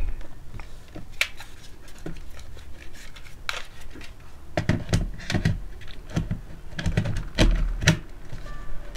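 Irregular plastic clicks and knocks as a battery pack is handled, slid into and latched into a Lenovo ThinkPad T400 laptop.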